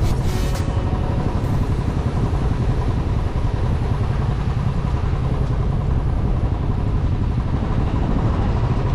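Steady low rumble and road noise of a vehicle driving along a road, with no change in pace.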